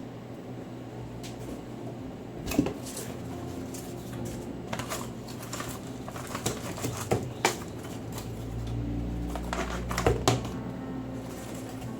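Hands handling keyboard unboxing contents and packaging: scattered clicks and knocks of small items being moved, with a low rumble of handling partway through.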